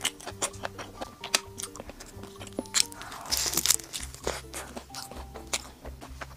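Close-up crunching and chewing of a crispy jianbing filled with a fried crisp cracker (baocui), with many small crackles. A louder crunchy bite comes a little past halfway.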